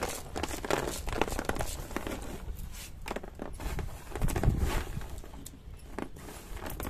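Roasted peanuts rubbed between the palms and dropped back onto a metal tray, an irregular rattling and clicking of nuts as their skins come off. A dull low rumble swells a little past halfway.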